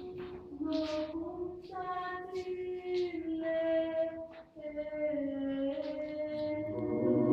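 Teenage secondary school choir singing held notes, the voices growing fuller and louder near the end.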